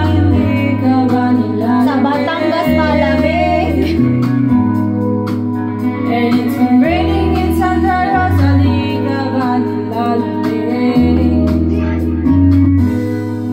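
A woman singing into a karaoke microphone over a backing track, her melody sliding over sustained bass chords that change every couple of seconds.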